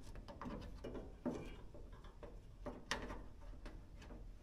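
Faint handling noise from a door-window weatherstrip being set along a car door's window ledge: scattered light clicks and rubbing, with two sharper taps, the first about a second in and the second about three seconds in.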